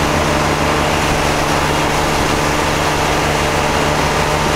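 Motorboat engine running steadily under way while towing a wakeboarder, with the wake water and wind rushing.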